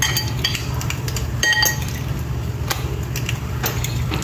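Metal fork clinking sharply against a ceramic plate several times while a slice of bread is turned in beaten egg, over a steady low hum.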